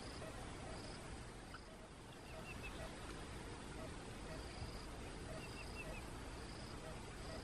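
Faint outdoor ambience: an insect chirping in short, evenly spaced high buzzes, with a bird giving quick chirps in groups of three, twice.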